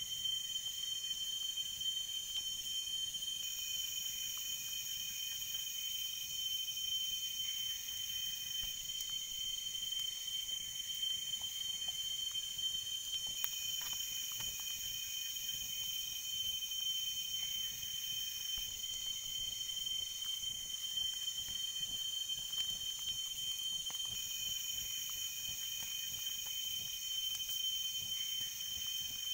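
Chorus of tropical forest insects calling together: several steady, high-pitched shrill tones overlapping without a break, with a few soft crackles from a small wood fire.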